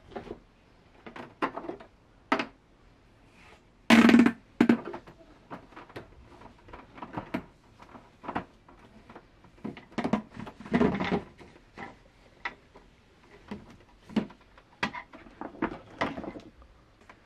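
Handling noises of a corrugated plastic hose being fitted to a dehumidifier's shoe-drying port and fed into a shower bag's fill opening: irregular clicks, knocks and rustles, with a loud knock about four seconds in and a cluster of louder knocks around ten seconds in.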